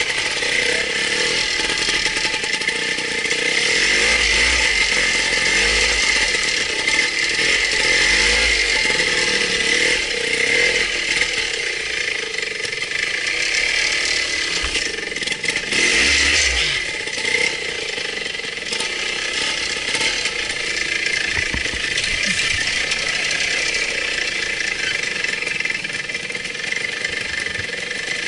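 Vintage two-stroke trials motorcycle engine running at low speed as it is ridden, its note picking up briefly a few times, heard close up from the rider's own bike.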